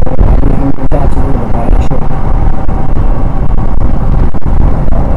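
Heavy wind rumble on the microphone of a moving Royal Enfield Himalayan at highway speed, with its single-cylinder engine running underneath.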